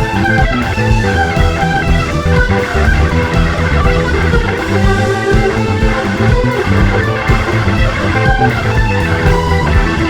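Rock music playing, with electric guitar and bass guitar to the fore.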